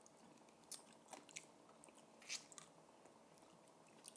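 Faint chewing and crunching of crispy fried salted-egg chicken wings, a few scattered soft crunches with the loudest a little past two seconds in.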